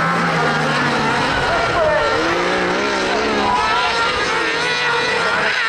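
Engines of several kart cross buggies racing on a dirt track, their pitches rising and falling together as they accelerate and lift off through the corners.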